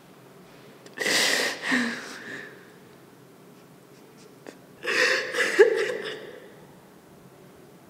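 A woman laughing in two breathy bursts, one about a second in and one about five seconds in.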